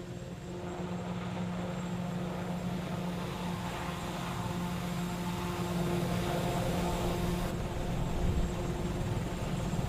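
Steady aircraft-like engine drone with a rush of air, the sound of a hovering fan-lifted flying vehicle, growing a little louder about six seconds in.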